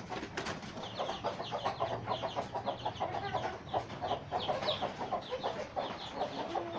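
A flock of kienyeji (Kenyan free-range indigenous) chickens clucking, with many short calls overlapping several times a second.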